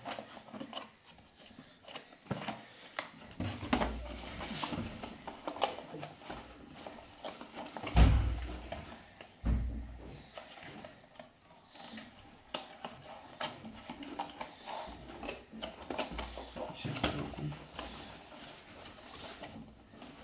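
Hands handling cardboard packaging: a paperboard product box being slid and pressed into a cardboard shipping carton, with irregular rustling, scraping and small knocks. There are two dull thumps close together near the middle, the first the loudest.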